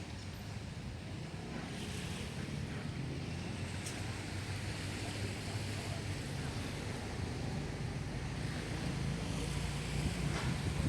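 Sea waves washing on the beach, with wind buffeting the microphone. A steady low hum runs underneath.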